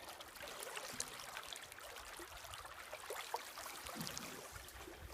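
Flowing river current, a steady rush and trickle of water with a few faint clicks through it.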